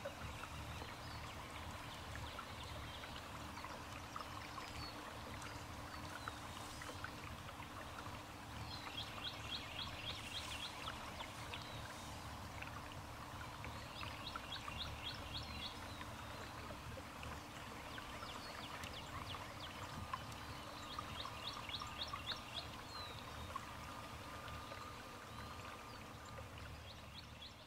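Steady rushing water-like noise, with a bird repeating a short, rapid trill about every five or six seconds.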